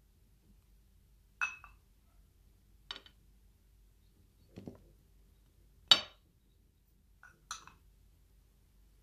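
Small glass bowls clinking against a cut-glass serving plate as they are lifted and set down: a handful of separate light clinks, with one duller knock midway and the loudest clink about six seconds in.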